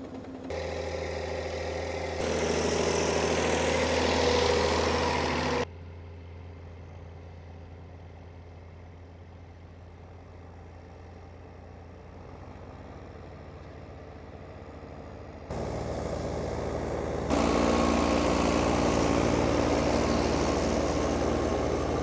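Vintage diesel tractor engines running steadily under load while ploughing, in a string of clips: first a Track Marshall crawler pulling a plough, then four-wheel-drive Ford tractors. The engine sound changes abruptly at each cut, quieter in the middle and loudest over the last few seconds.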